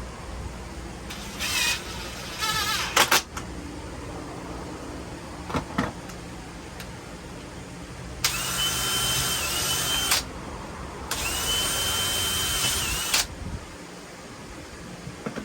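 Power drill working into wood in two steady runs of about two seconds each, the motor's whine dipping slightly as each run ends. Shorter whirs and a couple of sharp clicks come a few seconds earlier.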